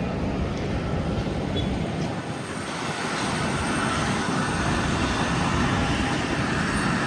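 Jet airliner heard from inside the cabin: a steady rumbling roar of engines and the airframe that grows louder about three seconds in, as on a takeoff run.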